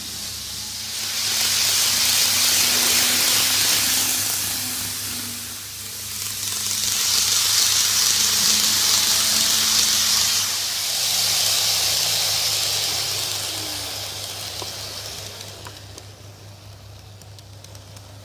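N-gauge model of a Tokyu 5050 series 4000-subseries electric train running on its track, its motor and wheels making a hissing whir that swells twice as it passes close and then fades away over the last few seconds.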